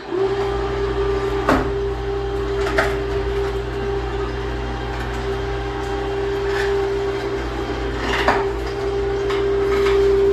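Electric motor of a homemade attic lift running steadily with a low hum and a steady whine, raising the lift basket, with a few short sharp knocks along the way.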